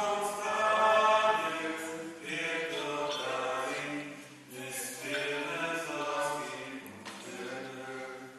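A hymn sung by several voices in phrases of a second or two, over a steady held low note.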